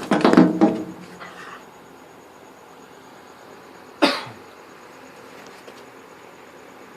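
Whippets making short vocal noises: a loud throaty burst right at the start, then a single short, sharp huff about four seconds in.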